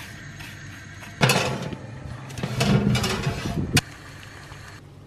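A metal spoon spreading rolled oats and chopped nuts over baking paper: a loud rustling scrape lasting about two and a half seconds, starting about a second in and stopping abruptly, over a steady low hum.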